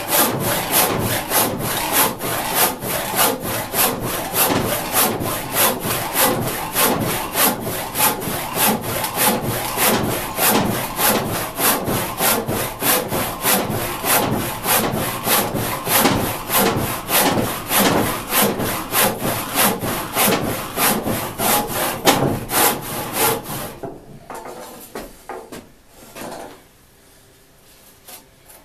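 Disston D-8 eight-point crosscut handsaw cutting through a 4x6 timber beam in steady, even back-and-forth strokes. The sawing stops about four seconds before the end, followed by a few softer scrapes.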